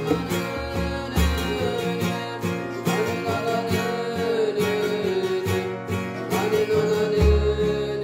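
A sung chant over strummed acoustic guitar, the voice holding long notes that waver slowly in pitch.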